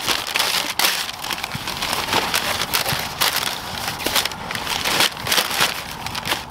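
Tissue paper and a plastic drawstring boot bag rustling and crinkling as hands pull them out of a cardboard shoebox: a loud, crackly rustle made of many sharp crinkles.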